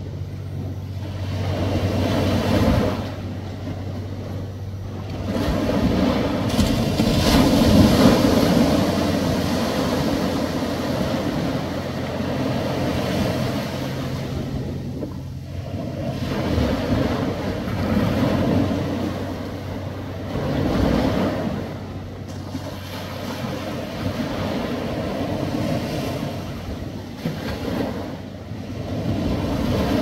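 Small ocean waves washing ashore, the surf noise swelling and ebbing every few seconds and loudest about eight seconds in. A low steady hum runs underneath and fades out about halfway.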